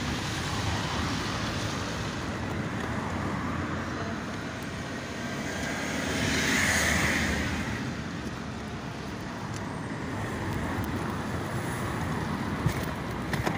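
Street traffic running steadily, with one vehicle passing close about halfway through, its noise swelling and then fading. A single sharp click near the end.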